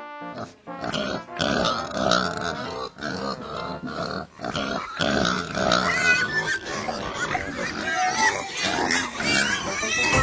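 Pigs grunting, with high squeals joining in from about six seconds in.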